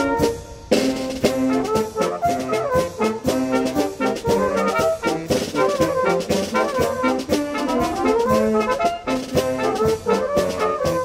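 Fanfare band of brass (trumpets, flugelhorn, euphonium, tuba) and saxophones playing with drum beats. A held chord breaks off right at the start, and after a brief pause the band comes back in with a new lively phrase that carries on.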